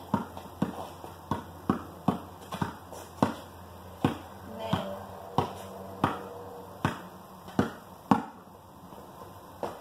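Basketball dribbled on a concrete driveway: a run of sharp bounces, quick at first and spacing out to about one a second after about four seconds.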